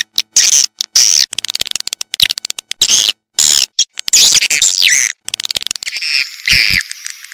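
Swiftlet calling sound played as a lure for swiftlet houses: rapid chattering trains of clicks mixed with high, twittering chirps, some of them sliding downward in pitch.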